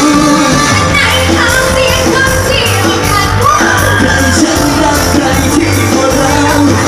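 Live Thai band music played loud through a stage PA, with a steady beat and bass and a voice singing over it.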